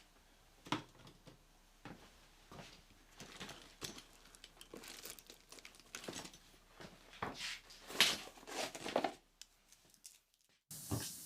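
Faint rustling, crinkling and light knocks of things being handled and cleared off a workbench. The sound cuts off abruptly near the end.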